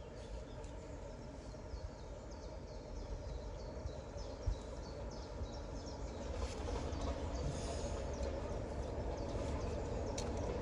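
Birds chirping over a low rumble, then an approaching train growing steadily louder from about six seconds in.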